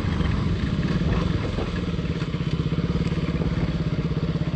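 Single-cylinder KTM RC sports motorcycle's engine running at low revs under the rider, a steady, even throb that settles a little quieter about two seconds in as the bike rolls slowly.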